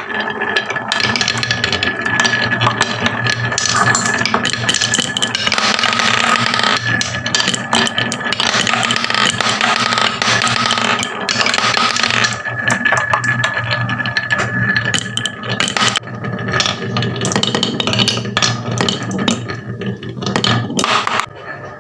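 Marbles rolling and clattering down a wooden HABA marble run, a continuous rattle of many quick clicks. A steady high whine runs under the rattle for the first few seconds and again a little past the middle.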